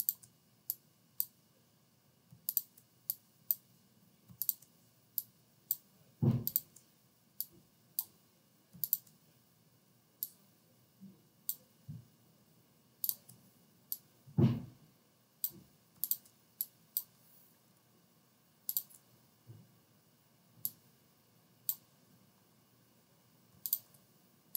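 Computer mouse clicking irregularly, dozens of single clicks, as a clone stamp tool is dabbed over part of an image. Two dull thumps, about six and about fourteen and a half seconds in, are the loudest sounds.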